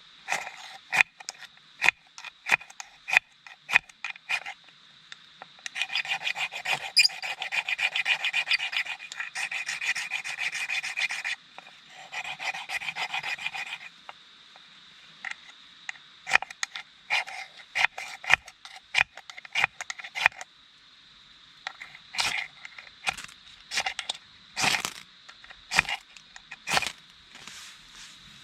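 Short, sharp scraping strokes, single at first, then in fast runs lasting several seconds, then single again.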